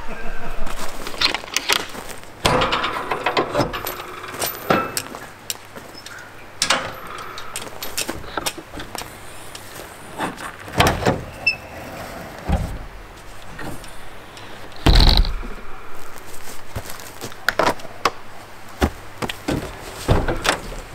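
Latches, hatch and tailgate of a pickup truck's wedge camper topper being worked by hand: a string of clicks, clunks and rattles, with the heaviest thud about fifteen seconds in.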